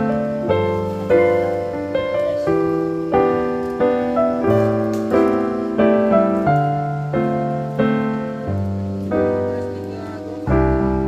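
Background music: a gentle piano melody with notes struck about once or twice a second over sustained bass notes.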